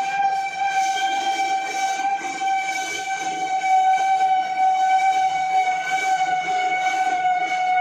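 Automatic round bar threading machine running on a long bar: a steady high whine that sinks slightly in pitch, over a rattling mechanical churn.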